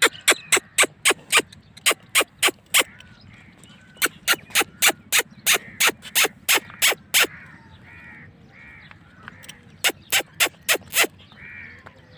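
Rapid runs of sharp, loud clicks, about four a second, in three bursts, with faint bird-like calls in the gaps.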